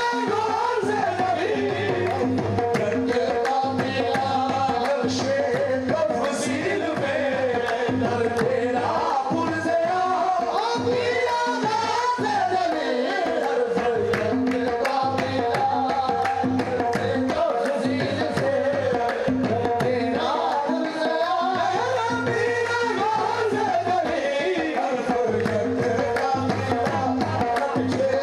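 Live qawwali: a singer's voice rising and falling over a sustained harmonium and tabla keeping a steady rhythm.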